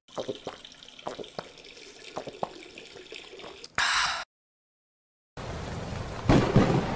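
Cartoon sound effects: single water drips at uneven intervals, a short burst of hiss just before the sound cuts out completely for about a second, then steady rain that swells louder near the end.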